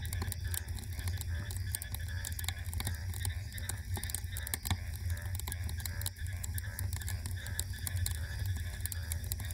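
Wood fire crackling, with frequent small snaps and pops from the burning logs and embers over a steady low rumble.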